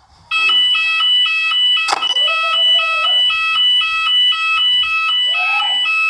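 Shop fire alarm sounder between its recorded evacuation announcements: a loud electronic two-tone alarm, alternating high and low about twice a second, with a sharp click about two seconds in.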